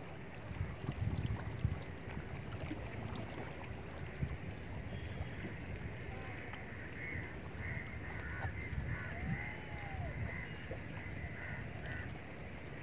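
Outdoor seaside ambience: wind buffeting the microphone as a low, uneven rumble, gusting harder about a second in. Faint distant voices or calls come through in the second half.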